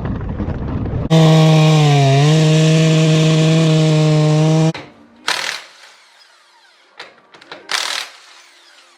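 Large Husqvarna two-stroke chainsaw on a chainsaw mill, running at high revs for about three and a half seconds. Its pitch dips briefly as it takes load, then it cuts off. A low rumble comes before it, and two short bursts of noise come after.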